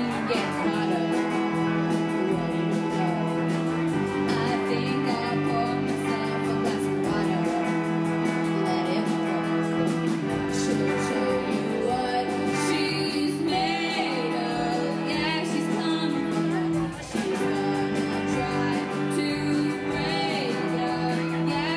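Live rock band playing electric guitars and drums, with a girl singing over chords that change every few seconds.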